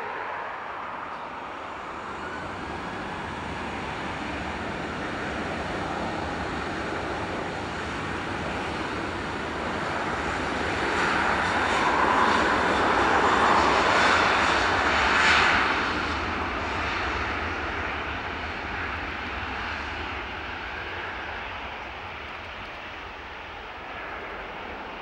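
Boeing 737-800's twin CFM56-7B turbofans at takeoff thrust during the takeoff roll. The engine noise builds as the jet accelerates toward and past, is loudest a little past halfway, then fades as it rolls away.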